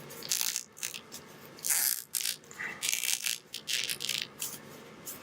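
Handling noise from a 1/12-scale action figure and its cloth jacket: a run of short rustles and small rattling clicks as the figure is worked and posed in the hands.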